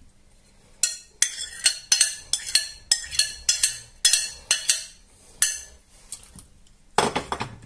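A metal spoon knocking and scraping against a glass mixing bowl, about a dozen sharp clinks in quick succession, as the egg, potato and cabbage mixture is scraped out into the frying pan. Near the end comes one louder, longer clatter as the spoon works the mixture in the pan.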